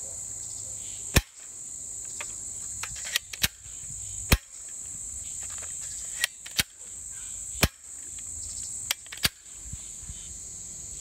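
Hi-capa spring-plunger toy dart gun being fired and cocked. Three single sharp snaps, about three seconds apart, are the shots, each followed a couple of seconds later by a quick double click as the slide is racked. A steady high-pitched drone of insects runs underneath.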